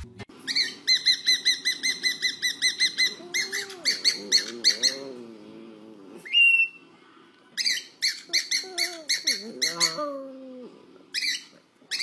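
Cockatiel chirping in quick runs of repeated chirps, about six a second, broken by short pauses. Lower wavering calls come in between the runs, about a third of the way in and again past the middle.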